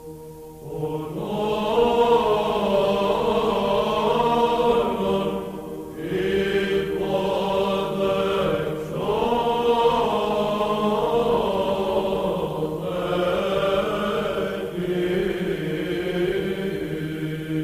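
Byzantine chant sung in Greek: a melismatic melody over a steady low held drone (ison), pausing briefly about six, nine and thirteen seconds in.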